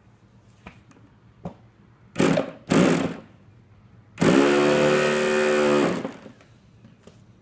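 Handheld electric starter turning over a K&B 11cc (0.67 cu in) nitro outboard engine: two short blips, then a steady spin of about two seconds that stops abruptly.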